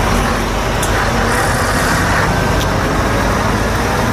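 Articulated lorry pulling a refrigerated semi-trailer at low speed, its diesel engine running with a steady rumble and road noise.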